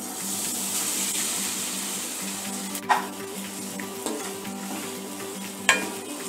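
Grated cassava sizzling as it drops into hot ghee in a nonstick pan, loudest in the first couple of seconds, then a spatula stirring it through the hissing fat, with a few sharp knocks of the spatula on the pan, one about three seconds in and another near the end.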